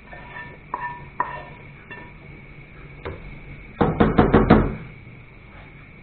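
Wooden spatula scraping and clicking against a frying pan, then knocked about five times in quick succession on the rim of a soup pot, about four seconds in, to shake off fried vegetables.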